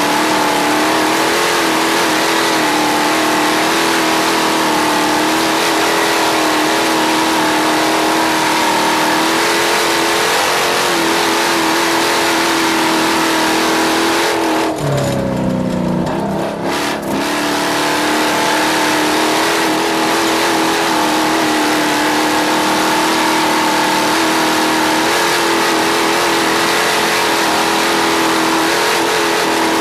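A vehicle engine running at steady high revs, with the revs dipping briefly about halfway through and then climbing back.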